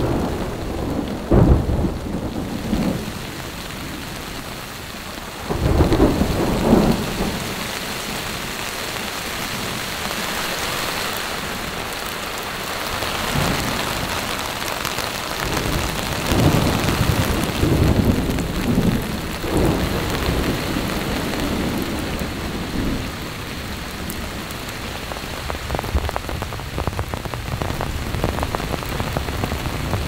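Steady heavy rain with several low rolls of thunder, the strongest near the start and about six seconds in, and more rumbling in the middle.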